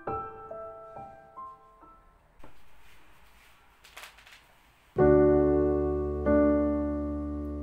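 Solo piano music: soft single notes die away, a quiet gap follows with faint hiss and a small click, then full, loud chords strike twice about five seconds in and ring out.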